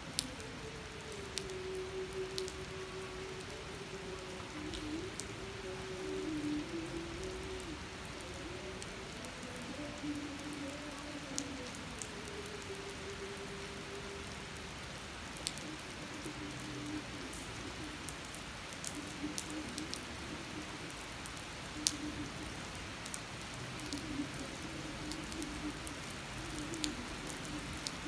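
Steady rain falling on wet asphalt pavement, with sharp ticks from single drops landing close by. A low, wavering hum runs underneath.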